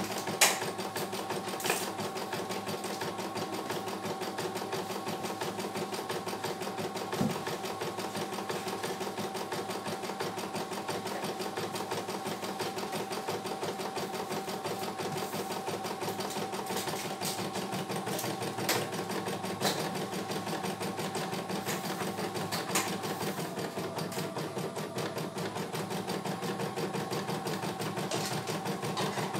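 CNY E900 computerized embroidery machine stitching a design, its needle running in a fast, even rhythm with a few sharper clicks, and its pitch dipping briefly about two-thirds of the way through.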